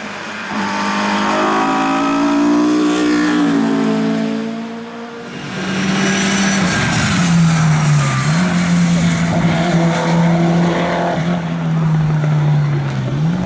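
Touring race car engines at full throttle on a hill climb. One revs up, shifts about three and a half seconds in and fades away. Then a louder engine holds a steady high note, dipping briefly twice around the middle as it shifts.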